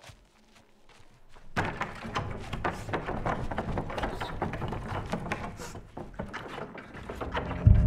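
Wooden barn wall planks rattling and knocking under hands pushing and banging on them: a rapid, irregular clatter that starts about a second and a half in. A sudden loud low boom cuts in near the end.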